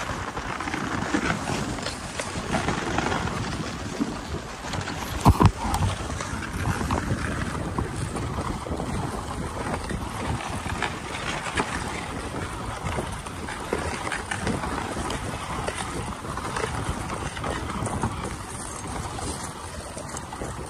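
Dog sled running along a snowy trail behind its husky team: a steady rushing of the sled over the snow, mixed with wind on the microphone. A sharp knock about five seconds in.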